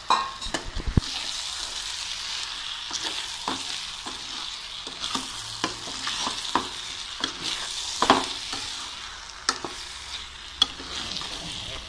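Raw chicken pieces sizzling in a nonstick pan with onion, tomato and spices while a slotted spatula stirs them, scraping and clicking against the pan at irregular moments.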